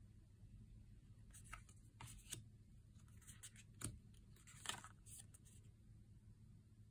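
Faint handling of oracle cards: a handful of soft slides and taps as cards are drawn off the deck and laid down on a velvet cloth, the longest scrape about two thirds of the way in.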